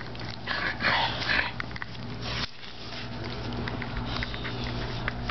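A four-week-old pit bull puppy gives a short whine about a second in as it nuzzles against its mother.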